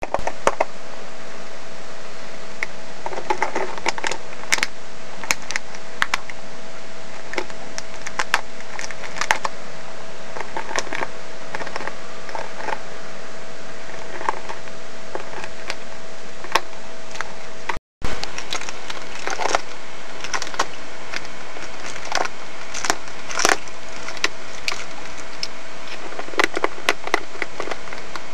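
A small dog chewing a plastic bottle: irregular crackles and clicks of the plastic over a steady hiss and faint hum, with a brief break in the sound about two-thirds of the way through.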